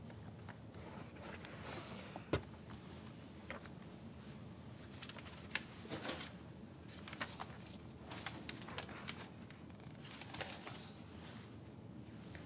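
Papers and objects being handled: scattered rustling and light knocks, with one sharp click about two seconds in.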